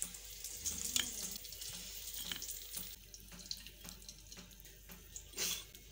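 A metal spatula knocks and scrapes lightly against a ceramic plate several times as fried potato slices are set down, over a faint steady hiss. The loudest knock comes near the end.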